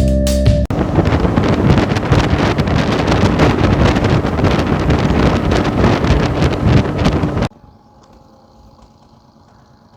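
Loud wind buffeting the microphone, cutting off suddenly about seven and a half seconds in to a much quieter low steady hum.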